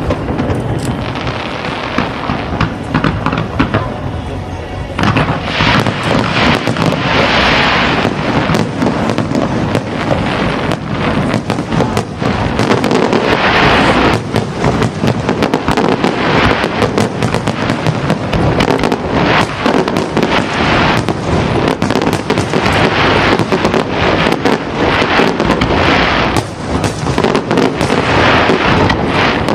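Fireworks display: a dense, continuous barrage of bangs and crackling shells, with music playing along.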